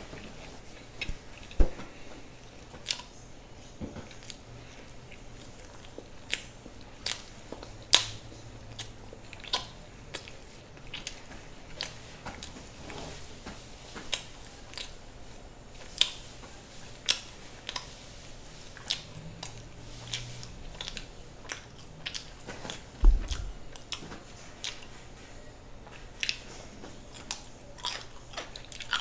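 Close-miked chewing of a large sandwich: a steady run of sharp, crunchy, irregular mouth clicks, about one or two a second. A dull low thump comes about two-thirds of the way through.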